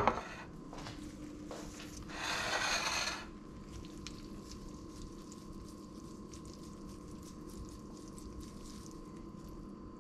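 A china plate is set down on a hard countertop with a sharp knock. About two seconds later comes a hiss of noise lasting just over a second. After that a fork clicks and scrapes faintly against the plate as it twirls spaghetti.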